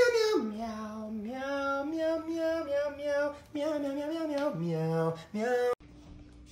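A woman's voice singing long held notes that step up and down in pitch. The singing cuts off abruptly near the end, leaving only faint room tone.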